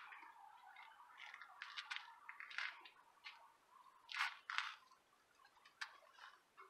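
Faint, irregular drips and crackles of water soaking into freshly watered potting mix, a few louder pops about two and a half and four seconds in, over a soft trickle that fades out in the first half.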